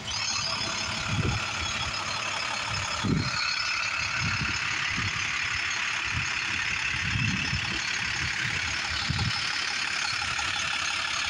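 Navistar DT466 7.6-litre inline-six turbo diesel of an International 4300 truck idling steadily, a constant hiss and whine over an uneven low rumble.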